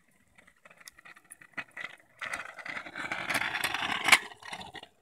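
Kick scooter's small wheels rolling over rough asphalt: faint clicks at first, then a loud rolling noise that swells about two seconds in as the scooter passes close, peaks near the fourth second and fades.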